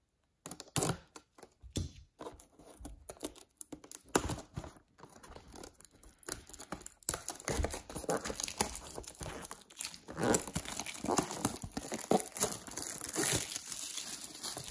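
Plastic shrink-wrap being torn and crumpled off a cardboard trading-card box by hand: a long run of irregular crackling and crinkling that starts about half a second in.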